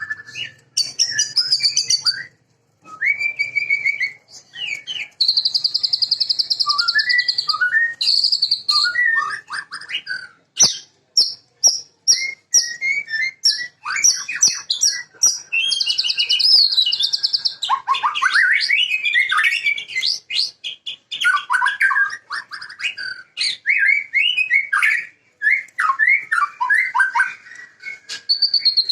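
White-rumped shama singing a long, varied song of clear gliding whistles, fast high trills and runs of sharp clicking notes, broken by a few brief pauses.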